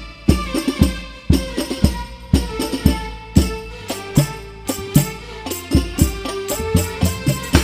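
Al-Banjari ensemble of hand-struck frame drums (terbang/rebana) playing a fast interlocking rhythm, with deep low strokes mixed with sharp bright slaps.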